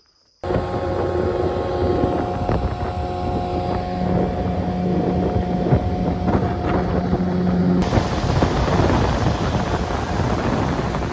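Small boat's motor running steadily under way, with wind buffeting the microphone. The motor's hum drops away about eight seconds in, leaving mostly wind and water rush.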